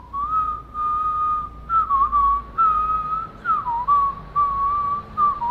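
A man whistling a slow tune through pursed lips: one clear, slightly wavering note line held in short phrases with brief breaks between them.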